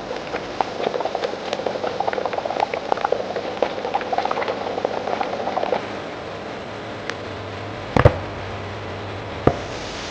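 Processing-line machinery: a rapid, irregular clatter of many small knocks for about six seconds, giving way to a steady low hum broken by two sharp knocks near the end.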